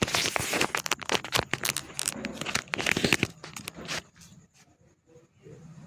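Close handling noise as a phone is fitted into a selfie stick's holder: a quick run of scratchy rubs and clicks for about three seconds, one more click about four seconds in, then it goes quiet.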